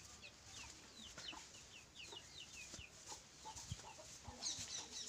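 Chicks peeping faintly: a quick series of short, high, falling chirps, several a second, with a brighter burst of high calls near the end.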